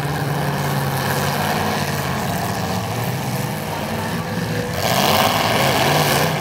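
Demolition derby car engines running and revving over a steady din, growing louder about five seconds in.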